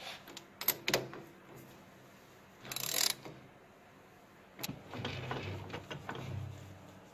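Socket ratchet wrench tightening a nut on a lathe mandrel: sharp clicks near the start and a short burst of ratcheting about three seconds in. Later comes metal rattling and clanking as the lathe's carriage handwheels are worked.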